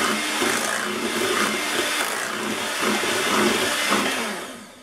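Electric hand mixer running, its beaters churning sweet potato pie filling in a glass bowl; the motor winds down and stops near the end.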